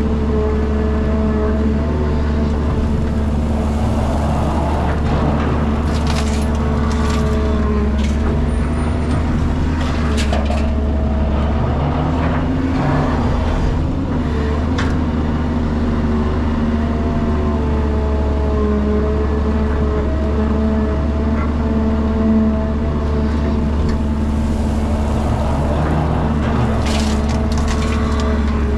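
Caterpillar 320 GC excavator's diesel engine running steadily under hydraulic load while it digs, swings and dumps soil, its pitch shifting a little as the load changes. Short scraping and clattering from the bucket and falling earth come several times.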